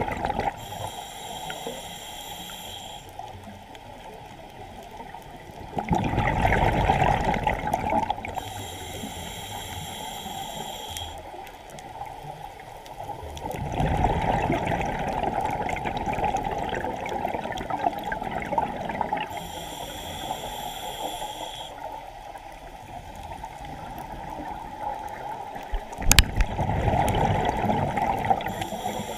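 Scuba diver breathing through a regulator underwater, three breaths: each starts with a hissing inhale through the demand valve, then a louder rush of exhaled bubbles lasting a few seconds. There is a sharp click at the start of the last exhale.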